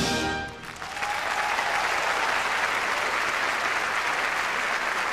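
Orchestra's last chord dies away at the very start, and about a second in an audience breaks into steady, dense applause that holds to the end.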